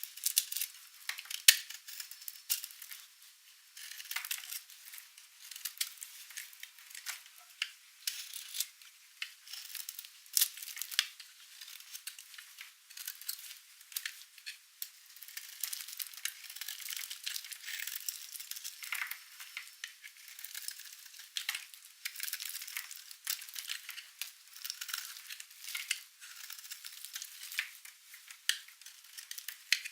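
Dry, painted soap being cut, with a dense, crisp crackling and many sharp clicks and snaps throughout as the brittle soap breaks under the blade.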